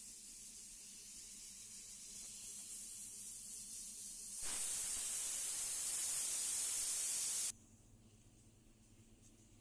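Steady hiss that slowly grows louder, then a much louder hiss starts suddenly about four and a half seconds in and cuts off abruptly three seconds later.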